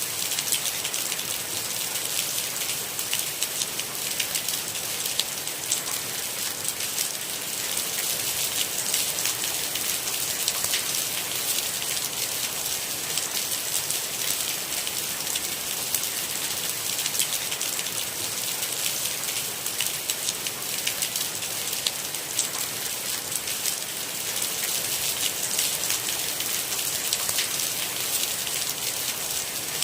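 Steady rain: a dense, even hiss of falling drops with many small, distinct taps, unchanging throughout.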